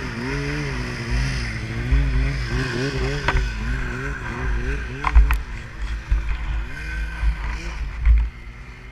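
Snowmobile engine running while riding, its pitch rising and falling repeatedly as the throttle is worked. A heavy deep rumble runs underneath, and there are a few sharp knocks near the middle.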